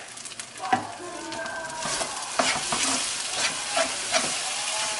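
Fried rice sizzling in a nonstick wok as a stainless steel ladle stirs and scrapes it, with repeated clicks of the ladle against the pan. The sizzle gets louder about two seconds in.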